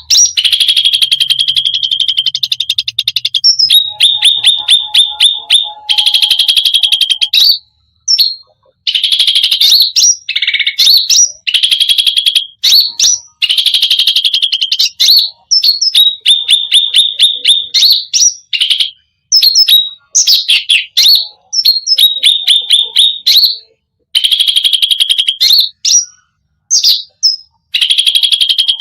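Cucak ranting songbird singing a loud, high song made of fast trills of rapidly repeated sharp notes and chattering phrases, in runs a second to a few seconds long with brief pauses between them.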